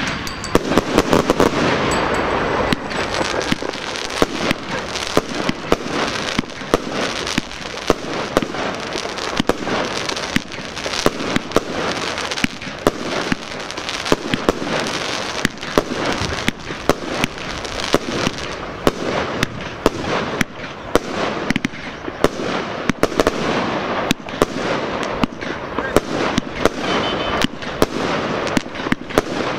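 Fireworks going off in a rapid, unbroken run: many sharp bangs a second from shots and bursting stars, over a steady crackle.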